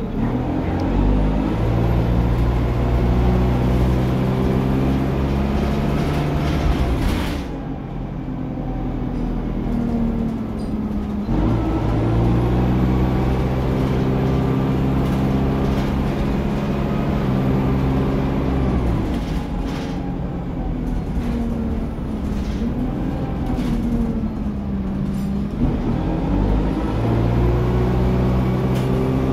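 Interior sound of an Alexander Dennis Dart SLF/Enviro 200 single-deck bus on the move: its diesel engine rises in pitch as it pulls away and works up through the gears. The engine dies back about seven seconds in and picks up again around eleven seconds. It eases off again around nineteen seconds and pulls away once more near the end.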